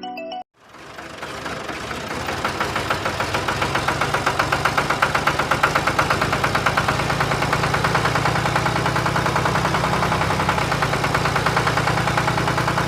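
Small engine running steadily with a fast, even pulse, getting louder over the first few seconds.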